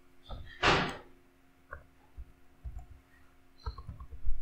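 Computer keyboard keys clicking in short, irregular bursts as a name is typed. A brief loud rush of noise about a second in is the loudest sound.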